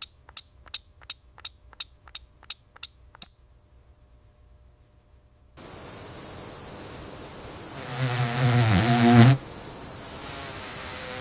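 A small animal's short, high chirps repeated about three times a second, stopping about three seconds in. After a pause, a steady outdoor hiss begins, and a low drawn-out call of about a second and a half rises out of it past the middle.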